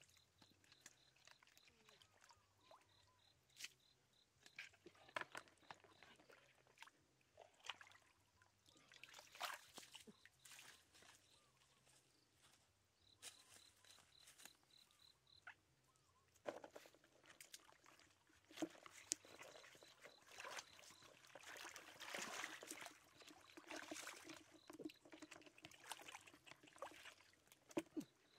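Faint splashing and sloshing of hands groping through shallow muddy water for fish, with small trickles and drips; the splashing grows busier in the second half.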